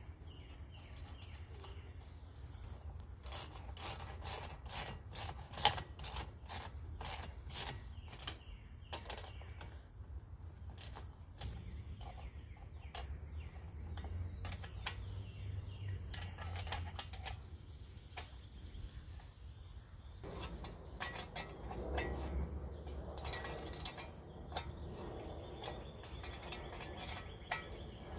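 Hand wrenches and steel nuts and bolts clicking and clinking in irregular runs as bolts are tightened on the steel clamp bars that fix a buffer stop to the rails, over a steady low rumble.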